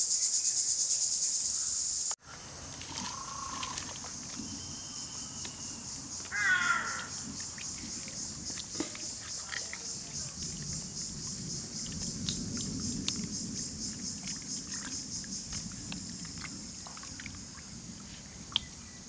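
Insects buzzing in a fast, even pulse, loud at first, then abruptly much fainter about two seconds in and continuing underneath. Later, hands swish and rub fruit in a bucket of water, with light splashes and clicks.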